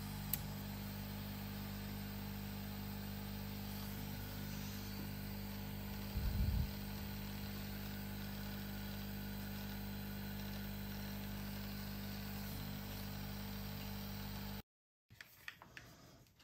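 Hot-air rework station's blower running steadily with a mains hum, then cutting off suddenly near the end. There is a single tick just after the start and a short low bump about six seconds in.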